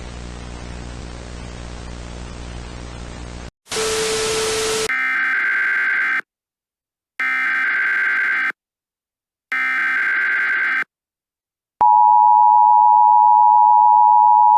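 Static hiss with a low hum for about three and a half seconds, then a short burst of loud noise with a low tone. After that come three separate bursts of Emergency Alert System SAME header data tones, about a second apart, and then the EAS two-tone attention signal sounding steadily and loudly near the end.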